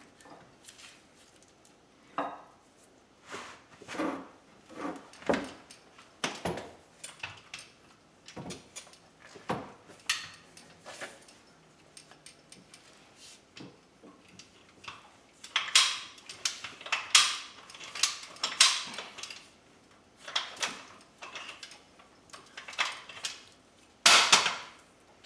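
Irregular metal clanks and clicks of hand tools and rigging hardware while a 7.5 horsepower motor is being fitted. The clanks come as single knocks, thickening into a busy clatter about two thirds of the way through and again near the end.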